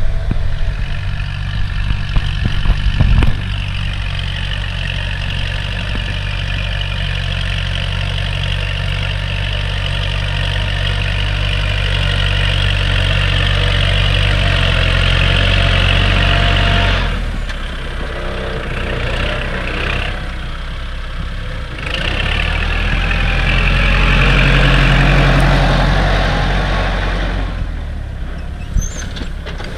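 A Kubota farm tractor's diesel engine runs steadily under load while pulling a disc plough through dry soil. It grows louder about two-thirds of the way through.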